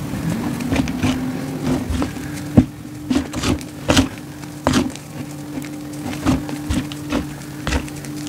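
Crumbled SPRI gym chalk being squeezed and crushed by hand in a bowl: irregular crisp crunches and crackles, with a few sharper, louder ones around the middle. A steady low hum runs underneath.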